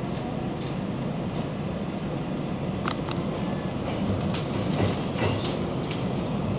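Electric train heard from inside a passenger car as it pulls out of a station: a steady running rumble with irregular clicks from the wheels and track, growing slightly louder about four seconds in as it gathers speed.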